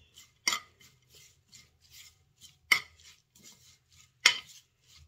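Metal spoon stirring chopped coriander and spices in a painted clay bowl: three sharp clinks of spoon on bowl, about a second and a half apart, with soft scraping between.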